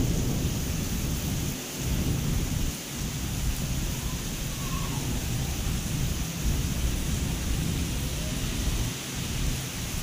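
Heavy rain pouring onto a concrete courtyard, a steady hiss, under a low rumble that swells and drops away several times.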